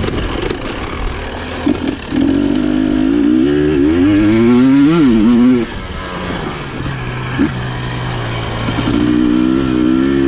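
Dirt bike engine under way on a rough trail. It opens up about two seconds in, its pitch climbing and wavering for a few seconds, drops back as the throttle is closed just before the six-second mark, then pulls again near the end.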